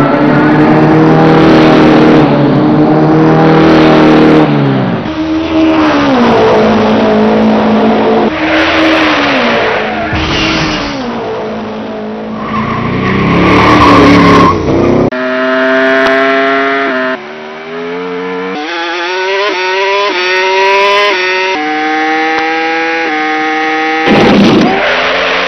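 Racing car engine revving, its pitch climbing and dropping again and again as if through gear changes, with stretches of tyre squeal.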